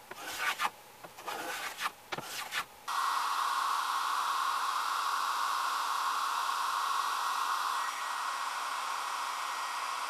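A few strokes of a hand plane shaving a board edge. From about three seconds in, a hair dryer blows steadily, held close to a plywood sheet.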